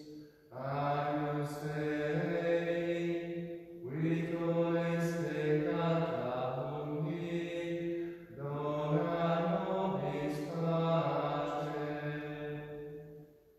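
A man's voice singing a slow liturgical chant in three long phrases of held notes, with brief breaks between them.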